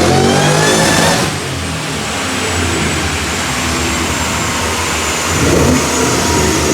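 Car engine on a chassis dyno, revving up under load through a wide-open-throttle pull. About a second in, the throttle lifts and the engine drops back to a lower, steady running note as the rollers wind down.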